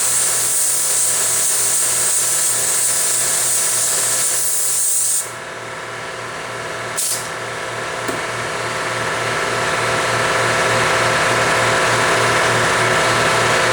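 Compressed air hissing hard from a hand-held air nozzle for about five seconds. It cuts off suddenly, then gives one short blast a couple of seconds later. Behind it an air compressor runs steadily with a fast, even pulse.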